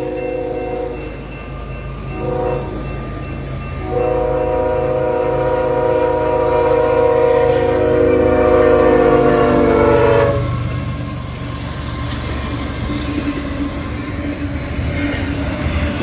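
Nathan Airchime K5HL five-chime locomotive horn sounding a grade-crossing signal: the tail of a long blast, a short blast about two seconds in, then a final long blast of about six seconds whose pitch drops slightly near its end as the locomotive passes. The freight train then rumbles and clatters past.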